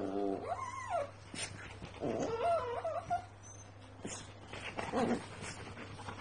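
Labrador retrievers play-fighting: a few high whines and yips that waver up and down in pitch, one near the start, one about two seconds in and a short one near five seconds.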